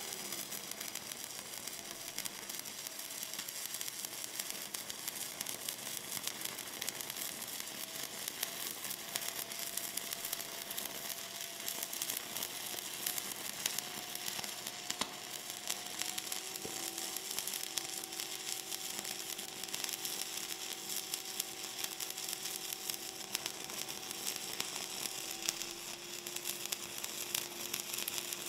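Stick (shielded metal arc) welding with a 7018 electrode at about 105 amps on thick steel: the arc burns in an unbroken, steady crackling sizzle as the pass is run.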